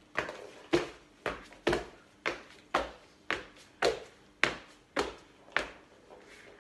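A man's hands and trainers landing on a wooden floor as he bunny-hops along it on all fours, about two landings a second, stopping near the end.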